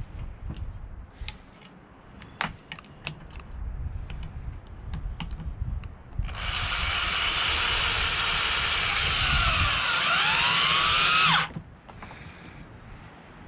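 Cordless drill driving a screw through a galvanized metal corner bracket into a wooden board: the motor runs loud and steady for about five seconds, its pitch shifting near the end, then stops abruptly. Before it, scattered light clicks and taps as the bracket and screw are set in place.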